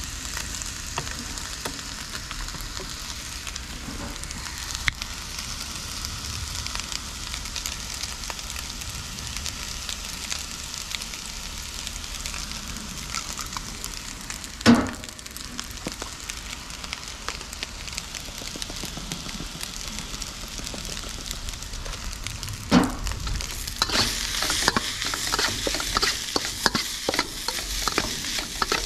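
Fried rice sizzling in a wok, with a sharp knock about halfway through and another about three-quarters through. After the second knock comes rapid scraping and clicking as the rice is stirred and tossed.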